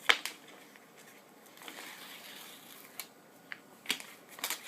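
Light handling noises from the Teflon barrier tape being picked up and worked: a faint rustle with a few small sharp clicks, one near the start and three in the last second and a half.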